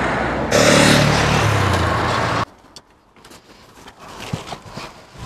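Roadside traffic: a vehicle drives past with its engine note dropping as it goes by. About halfway through the sound cuts off abruptly to a much quieter stretch with a few faint clicks.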